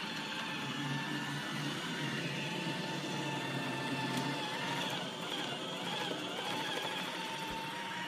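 iRobot Roomba 880 robot vacuum running on carpet: a steady motor whir with a thin, even whine over it.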